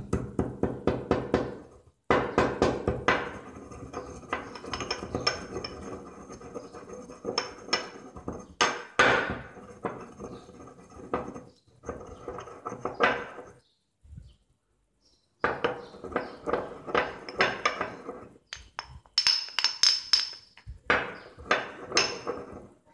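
Stone mortar and pestle crushing tablets into powder: quick repeated knocks of the pestle against the bowl mixed with scraping grinds. There is a pause of about two seconds a little past the middle, then the pounding starts again.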